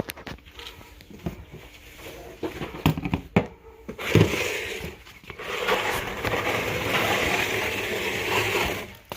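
Tools and gear being handled: scattered light clicks and knocks, then a thump about four seconds in, followed by about three seconds of steady scraping noise.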